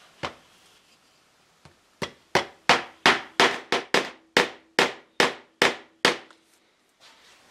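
A small hammer driving tiny tacks into a wooden mirror frame: one tap, then a quick run of about a dozen light taps at roughly three a second, tacking down the backing that glue would not hold.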